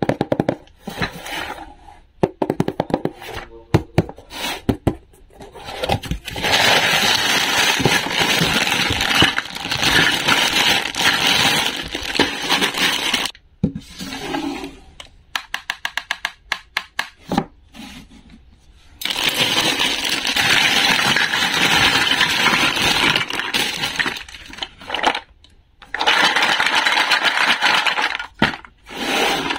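Handling sounds from unboxing a plastic toy fruit cutting set. Scattered taps and scrapes on a cardboard box come first, then three long stretches of a plastic bag crinkling and hard plastic toy pieces clattering, with short clicky pauses between them.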